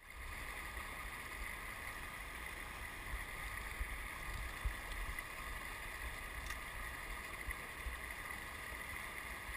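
Steady rush of river water running over rocky riffles, mixed with low wind rumble on the microphone, with a couple of soft knocks about four and five seconds in.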